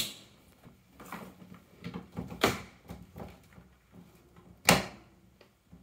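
Sharp clicks and knocks from handling a plug-in tester at wall power points: a plug pulled from one outlet and pushed into another, with a click at the start and two louder knocks about halfway and about three-quarters through.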